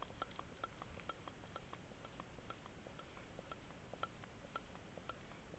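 Light, even ticking, about four small clicks a second, over a faint hiss.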